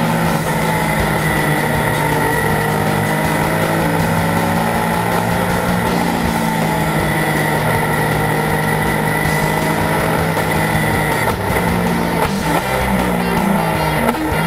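Porsche 911 race car's flat-six engine heard from inside the cockpit, holding a steady note for most of the stretch, with rock guitar music mixed underneath.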